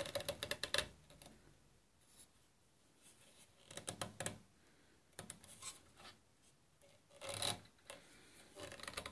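Quiet bursts of metallic clicking, rattling and scraping, about five of them, as the motor and blade of an old radial arm saw are nudged by hand to set the bevel close to 45 degrees.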